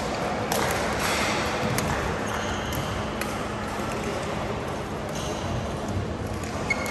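Badminton hall ambience: a few sharp, scattered racket-on-shuttlecock hits from the courts over a low murmur of voices and a steady low hum.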